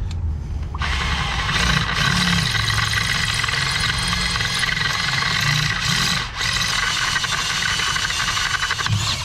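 Cordless drill boring through steel with a twist bit, enlarging a first pilot hole with the next size up. It runs steadily from about a second in, with a brief drop near two-thirds through.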